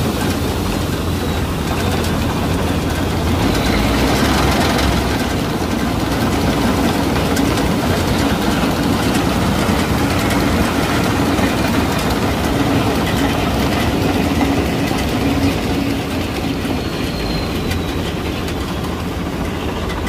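Punni Grain Cruiser combine harvester running steadily while its unloading auger empties wheat into a trolley: a continuous dense engine and machinery noise.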